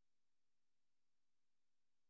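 Near silence: only a faint steady hiss with a low hum, no soundtrack.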